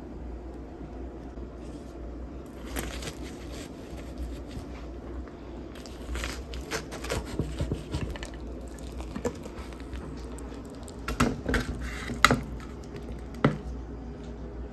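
Flaky baked pie crust of a chicken pot pie crackling and crumbling as it is cut and a slice is lifted out, with scattered short crunches and scrapes, the loudest cluster a few seconds before the end, over a steady low background rumble.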